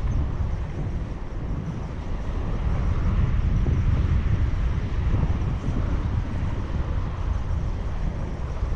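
Steady low rumble of wind on the microphone over the wash of ocean surf.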